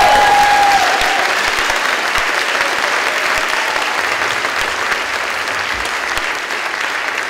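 Theatre audience applauding at the close of a musical number. A pitched, held note fades out about a second in.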